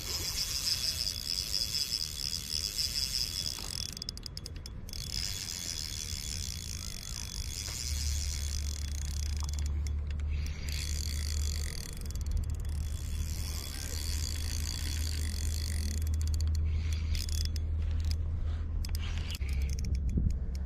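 Spinning reel being cranked in long runs, its gears working under load as a hard-fighting hooked salmon is played on the line.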